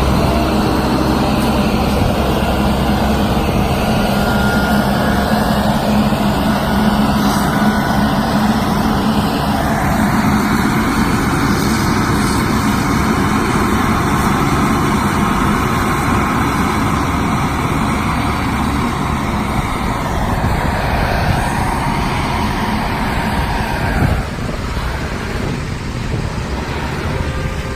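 Self-loading concrete mixer truck's diesel engine running steadily under a noisy wash of machine sound, with one sharp knock about twenty-four seconds in.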